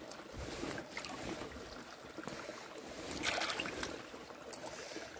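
A small stream trickling, with rustling close to the microphone that swells about three seconds in.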